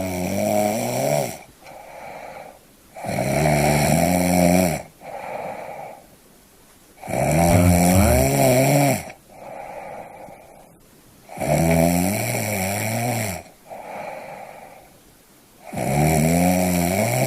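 A person snoring in a steady rhythm: five loud, rattling snores about four seconds apart, each followed by a shorter, quieter breath.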